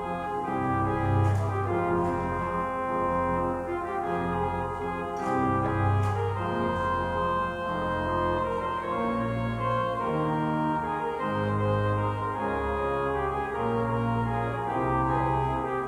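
Organ music: held chords over a moving bass line.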